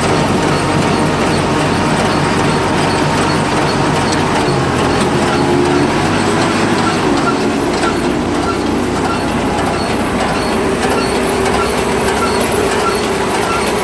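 A small round baler with a force-feeding pickup running steadily: a loud mechanical drone whose engine pitch shifts about five seconds in, with a light regular clicking about twice a second.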